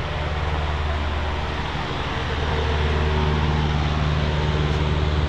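Large electric shop fan running with a steady low hum and a rush of air.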